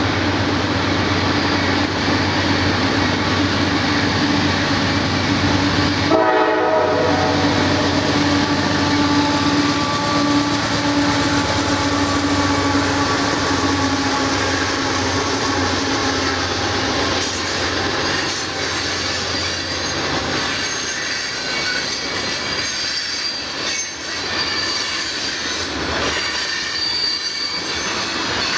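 Freight train passing at close range: a steady drone from the CSX diesel locomotives through the first half, then covered hopper cars rolling by with high-pitched wheel squeal and clacking of wheels over the rail.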